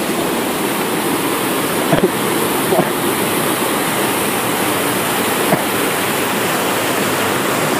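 Fast river rapids rushing over boulders in whitewater: a steady, unbroken rush of water.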